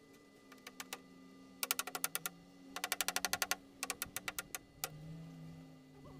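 A small hammer tapping a carved wooden trim strip onto a cabinet frame: quick runs of light, sharp taps in three bursts, the middle one fastest. The last taps are slower and spaced out.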